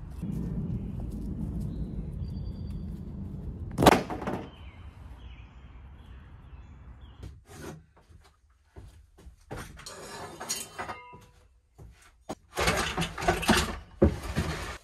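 Birds chirping over a low outdoor rumble, with one sharp, loud knock about four seconds in. Near the end, scattered clatter as a wooden workbench drawer is pulled open and tools rattle inside it.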